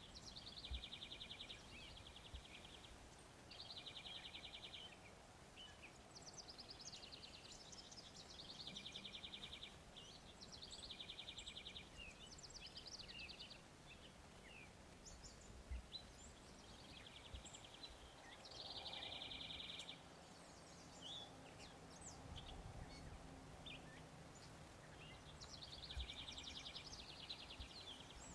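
Faint birdsong: a songbird repeating a short, even trill about every two to three seconds, with a few soft low thumps.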